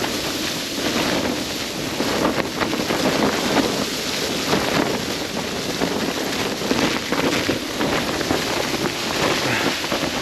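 Strong blizzard wind gusting against a tent, with rough wind noise on the microphone and a steady stream of short irregular crackles.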